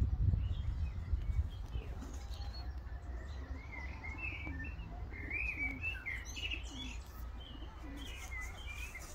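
Small birds chirping and twittering, with a few low pigeon coos, over gusty wind rumbling on the microphone. The wind is strongest in the first second or so, and the chirping builds up from about two seconds in.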